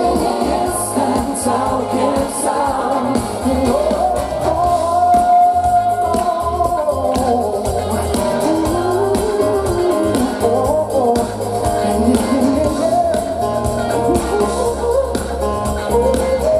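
Live pop song performed by a vocal group singing together at microphones over a band with guitars and bass, played loud through a PA.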